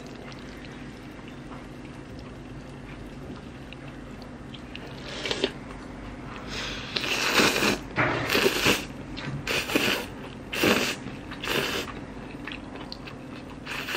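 A person slurping spicy rice noodles, several separate slurps starting about five seconds in, under a low steady hum.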